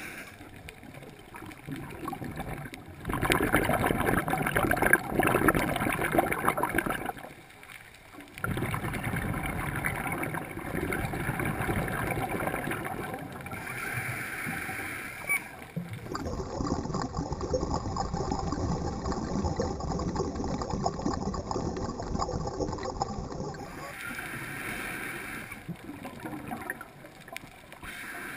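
Underwater noise heard through a diving camera's housing: a scuba diver's exhaled bubbles gurgling in long bursts. The noise is loudest from about three to seven seconds in, drops briefly near eight seconds, then runs on steadily and eases near the end.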